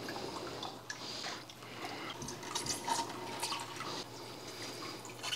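Faint water sounds from a hand working in aquarium water: small irregular drips and splashes as sand is scooped out into a metal cup.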